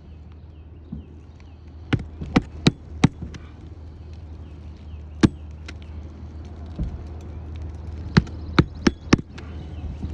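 Hammer blows driving roofing nails into an asphalt shingle: four quick, sharp strikes, a single one, then four more in quick succession.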